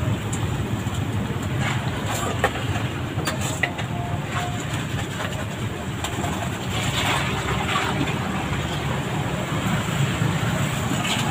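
Steady low rumble of nearby road traffic, with scattered light clicks and plastic rustling as ice is handled in a plastic bag.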